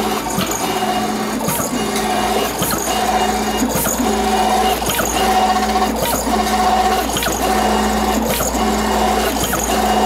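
FastJet II inkjet pattern plotter printing: its print-head carriage motor whines steadily as the carriage sweeps across the paper, with a short click about once a second.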